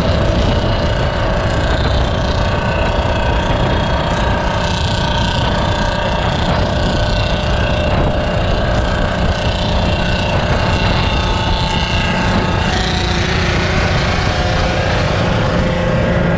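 Wind rushing over the microphone of a moving two-wheeler, with its engine running steadily at highway cruising speed.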